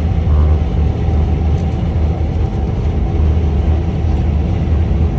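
Steady low rumble of a car driving at highway speed, heard from inside the cabin: road and engine noise with no change in pace.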